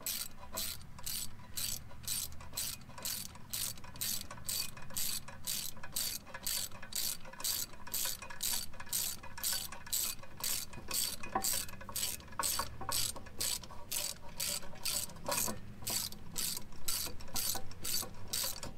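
Ratchet handle with a T40 Torx bit clicking steadily, about two and a half clicks a second, as it winds the rear brake caliper's parking-brake shaft clockwise to retract the piston.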